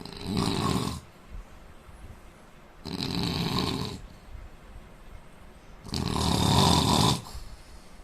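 A man snoring: three snores about three seconds apart, the last one the longest and loudest.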